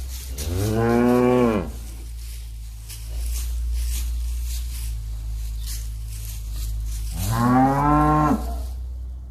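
Cattle mooing twice, two long moos that rise and then fall in pitch, about six seconds apart, over a steady low hum.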